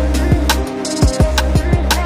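Background music with a fast, heavy beat: deep kick drums and sharp snare hits over a sustained low bass.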